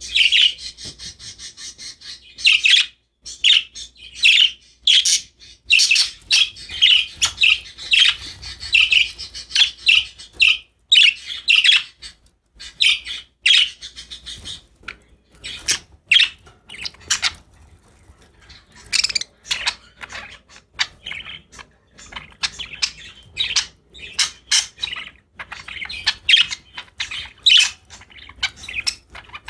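Pet budgerigars chirping and chattering in quick, irregular bursts of short calls, now and then a harsher squawk.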